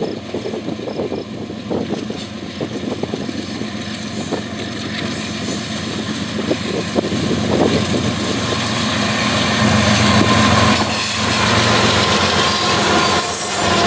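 CSX freight train passing close under power: the lead diesel locomotives' engines run loud, with a stream of sharp clicks from the wheels on the track. Near the end the rumble of the freight cars rolling by takes over.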